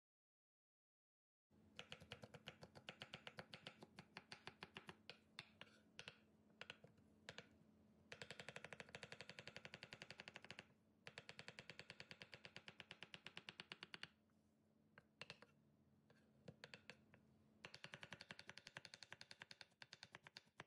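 Kitchen knife chopping vegetables such as red cabbage on a wooden cutting board: faint, quick runs of knocks with short pauses between them.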